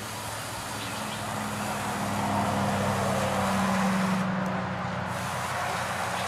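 Battery-powered electric pole saw running and cutting through a dead tree limb, the cutting noise swelling to its loudest a few seconds in and then easing.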